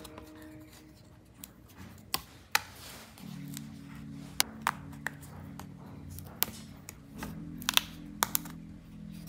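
Small pre-cut wooden and card pieces being pressed out of their sheets by hand: a string of sharp, separate snaps and clicks, a few close together now and then, with light rubbing of the sheets between them.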